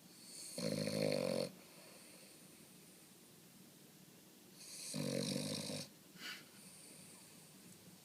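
Boston Terrier snoring in its sleep: two snores about four seconds apart, each about a second long, with a brief short snuffle just after the second.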